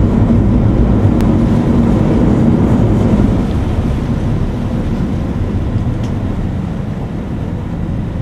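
Steady loud rumble of a moving boat, its engine and the rushing water mixed with wind buffeting the microphone. It is a little louder in the first three seconds.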